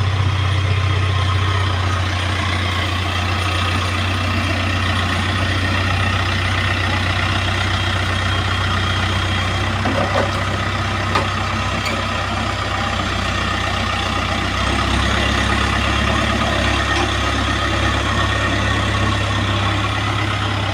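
A JCB excavator's diesel engine running steadily with a deep, even hum, and a couple of short knocks near the middle.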